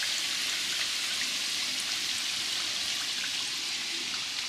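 Egg balls deep-frying in hot oil: a steady sizzle with faint scattered pops.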